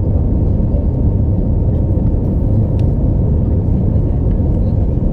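Cabin noise inside an Airbus A319 climbing out after takeoff: the jet engines and rushing airflow make a loud, steady low rumble, with a faint steady hum over it.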